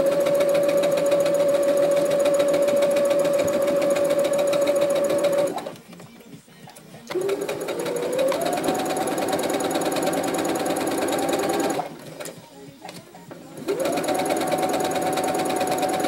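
Electric sewing machine running a straight stitch, its motor whining steadily over the fast, even patter of the needle. It stops twice for a second or two. After the first stop it starts up again and speeds up to a higher pitch.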